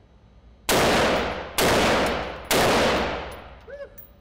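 Three shots from an AR-15-style semi-automatic rifle, fired about a second apart, each ringing on in the reverberant indoor range.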